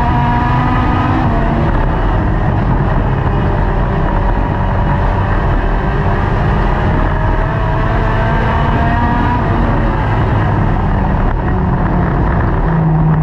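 Dirt-track race car's engine heard from inside the car, its pitch rising and falling several times with the throttle, then settling into a steady low note near the end.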